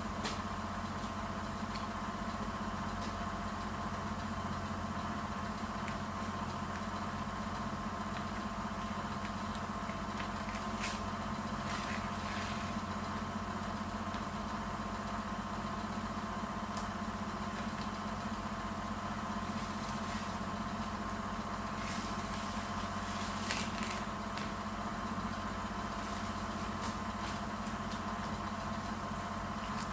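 A steady machine hum with a low drone, unchanged throughout. Over it come several brief crackles of masking tape and paper being peeled off the car, between about 11 and 24 seconds in.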